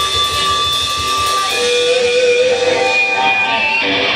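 Live blues band playing, led by an electric guitar. About a second and a half in, the drums and bass drop out, leaving long held, wavering notes, and the fuller band sound returns near the end.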